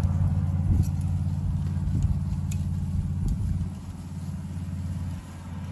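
A motor vehicle's engine idling with a steady low hum, which drops in level about four seconds in. A few faint light clicks sound over it.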